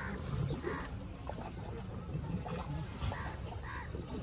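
Water sloshing around a rowboat, with short distant voices now and then.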